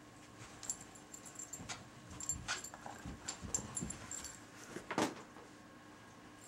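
Two dogs playing tug-of-war with a plush toy: low growls and light metal jingling from their tags, with one short, louder yip about five seconds in.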